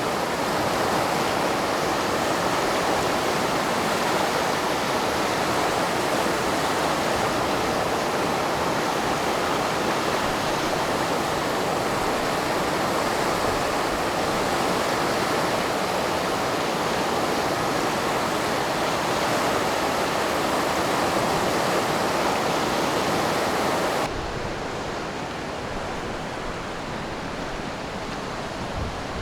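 The Katun, a fast mountain river, rushing and churning in a steady roar of water. Near the end the rush drops to a quieter, duller sound.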